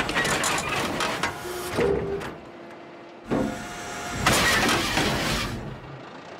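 Excavator bucket smashing a metal bus bench again and again: several sudden crashing, crunching impacts. The excavator's engine and hydraulics run between the blows.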